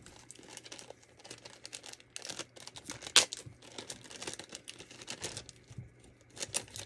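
Clear plastic packaging bag crinkling as it is handled and pulled open, in quick irregular crackles, the sharpest about three seconds in.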